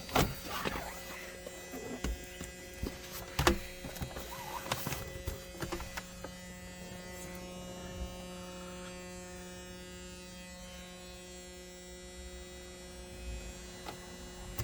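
A steady electrical hum, with a scatter of light clicks and knocks in the first few seconds.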